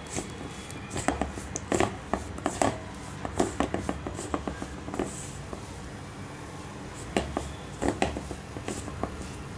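A hand rubbing butter into rice flour in a stainless steel bowl: irregular scraping and light clicks of fingers against the metal.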